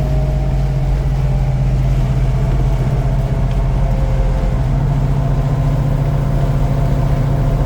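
Supercharged 6.2-litre HEMI Hellcat V8 in a 1969 Dodge Charger running at a steady, even pace, a deep drone with no revving.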